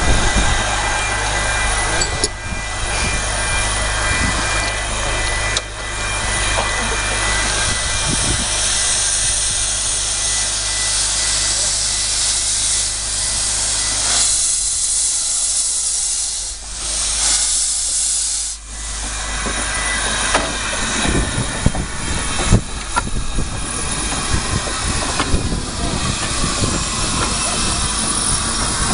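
Narrow-gauge Garratt steam locomotive moving slowly past, its cylinders hissing out steam continuously, with wind rumbling on the microphone until about two-thirds of the way through.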